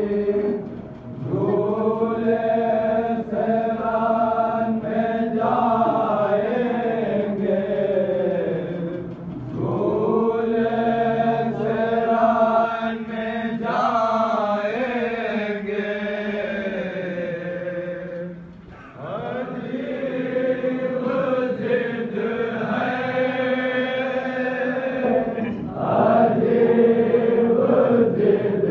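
Noha, a Shia lament, being chanted in long, slow melodic phrases with drawn-out held notes. The phrases last several seconds each and are separated by short breaks.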